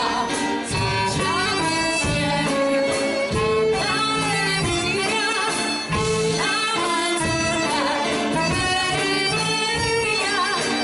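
Live band music with a singer's voice over sustained melodic instruments, playing steadily throughout.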